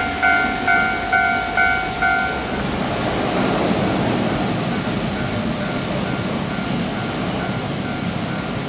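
Japanese level-crossing warning bell dinging about twice a second; about two and a half seconds in, a passing train's steady wheel-and-rail noise takes over and the bell carries on only faintly beneath it.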